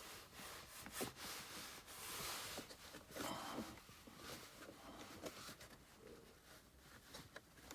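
Faint rubbing and a few small clicks as hands tug at a plastic side trim panel held in the dash by clips; the panel does not come free.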